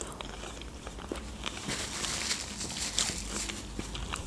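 Close-miked chewing of a fresh strawberry with whipped cream: a run of small, quick mouth clicks.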